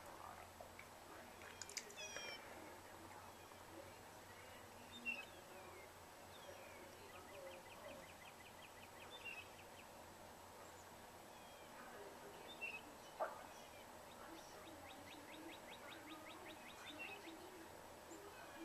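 Faint songbird calls in the distance, including two dry trills of rapid, evenly repeated notes, each about two to two and a half seconds long, the first about seven seconds in and the second about fifteen seconds in. A few brief sharp sounds stand out, the loudest about thirteen seconds in.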